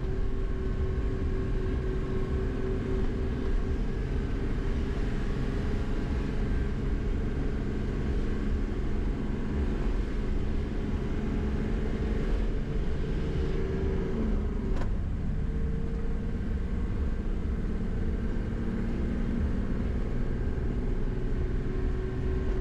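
Old converted camper van on the move: steady engine and road rumble, with a click and a brief break in the engine note about two-thirds of the way through, after which it carries on at a slightly different pitch.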